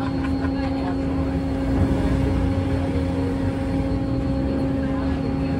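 A vehicle's steady engine drone: a constant low hum with a rumble beneath, unchanging throughout.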